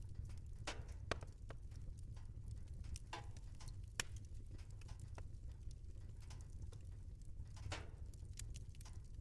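Wood fire crackling in a fireplace: irregular sharp snaps and pops, a few louder ones about a second in and about four seconds in, over a steady low rumble of the burning.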